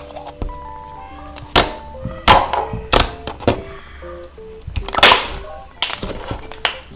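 Slime being pressed and played with, giving a series of loud, sharp pops and clicks, about six of them, over soft background music with a plucked melody.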